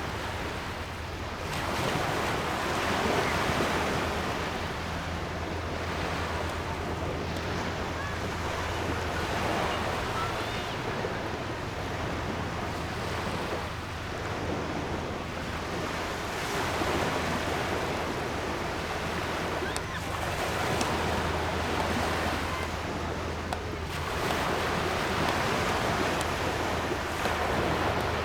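Waves breaking on a beach, the surf swelling and falling every few seconds, with wind buffeting the microphone and a steady low rumble underneath.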